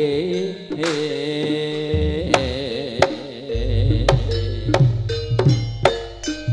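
Javanese jaranan music: a singer's wavering held note trails off in the first half. Sharp drum strikes follow, with a heavy bass underneath from about halfway.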